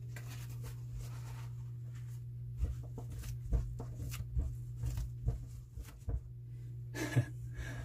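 Small clicks, taps and light rustles from hands handling the fish and its container, scattered through the middle and end, over a steady low hum.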